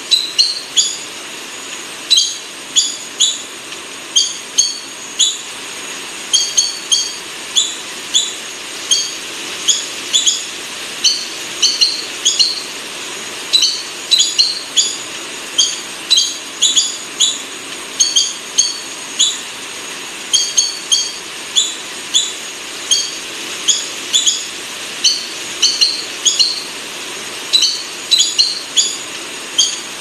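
Recorded buff-banded rail calls: short, high squeaky notes in quick runs of two to four, repeated without a break over a steady hiss.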